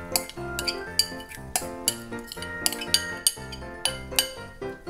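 Metal spoon clinking and scraping against a glass bowl in repeated sharp taps as grated apple is spooned out of it, over steady background music.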